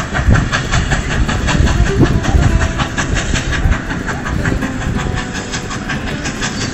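Steam locomotive hauling carriages past, its exhaust beats and wheel clatter on the rails in a quick, steady rhythm.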